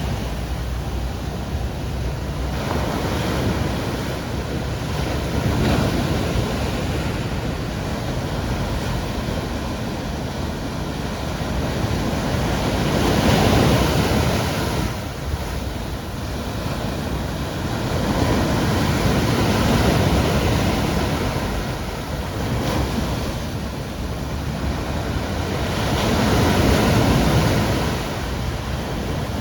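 Caribbean sea waves breaking and washing along the shore, the surf swelling and easing in surges about every six or seven seconds.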